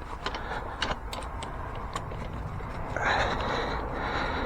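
Small metallic clicks and rattles of a drive chain being worked by hand onto a dirt bike's front sprocket, with a soft rustling hiss about three seconds in.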